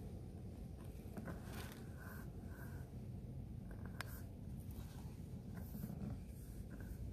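Faint rustling and scraping of clothing as a person climbs, with a few short scratchy scuffs and a sharp click about four seconds in, over a low steady rumble.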